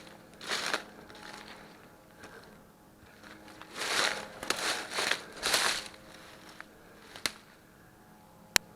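Footsteps crunching and rustling through dry undergrowth in irregular bursts, with two sharp snaps near the end.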